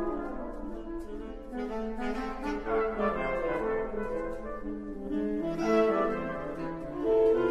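Chamber wind ensemble of saxophones, clarinets, euphoniums, trumpet and trombone playing a new concert piece, several lines of moving notes with swells in volume.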